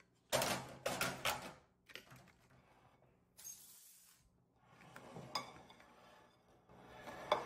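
Hands handling things on a wooden table. A second or so of crinkly rustling of wrapping comes first, then a few soft knocks as ceramic plates holding chocolate rabbits are slid about, and a sharp clink of a plate near the end.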